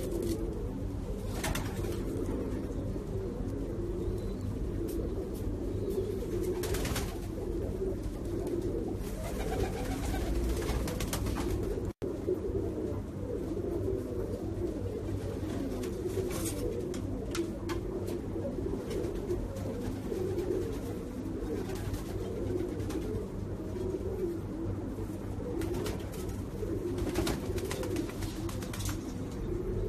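Many domestic pigeons cooing together in a loft, a continuous overlapping low warbling murmur, with a few brief clicks and a momentary break about twelve seconds in.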